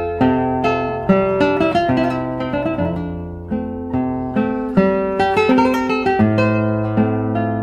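Background music: an acoustic guitar picking a melody over low bass notes, each note plucked and left to ring out.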